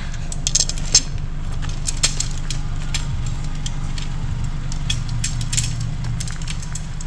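Footsteps crunching irregularly on a gravel and dirt campsite over a steady low rumble.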